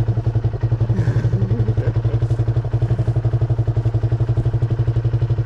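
An engine idling steadily, a low drone with a rapid, even pulse.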